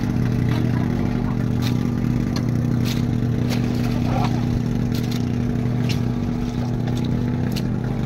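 Outrigger boat's engine running steadily at a constant speed, with scattered light clicks over it.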